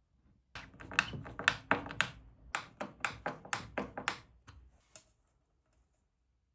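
Screwdriver work fastening metal-cased bridge rectifiers to a board: a run of sharp clicks and taps, about two or three a second, that stops about five seconds in.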